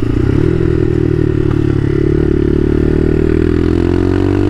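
Bashan Motomax 250 street-legal dirt bike's engine running on the road, rolling along at first, then revving up under acceleration from about two seconds in, its pitch rising steadily. The bike has been rejetted with a 105 main jet.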